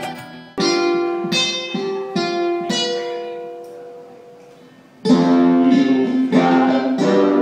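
Guitar music: four chords struck about a second apart and left ringing, fading away, then about five seconds in a loud band passage of rhythmic strummed guitar starts.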